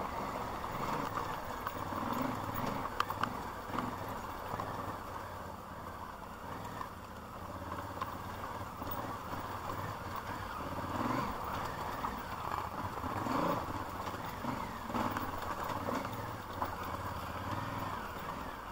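A vehicle driving over a rough unpaved road: a steady low engine hum with scattered knocks and rattles, the sharpest about three seconds in.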